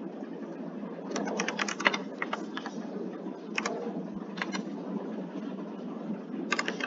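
Computer keyboard typing in irregular runs of clicks, heard through a video-call microphone over a steady low hum. The clicks come about a second in, again around the middle, and grow dense near the end.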